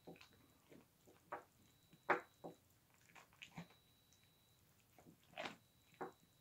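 Mule deer buck chewing carrot pieces off a tabletop: a string of irregular short crunches and clicks, the loudest about two seconds in and again near the end.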